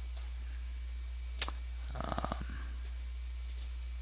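Computer mouse clicking over a steady low electrical hum. One sharp click comes about a second and a half in, a short run of quick clicks follows around two seconds, and a lighter click comes near the end.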